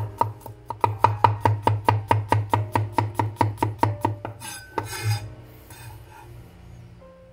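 Knife chopping garlic cloves on a wooden cutting board in quick, even strokes, about five a second, then the blade scraping across the board a little past halfway.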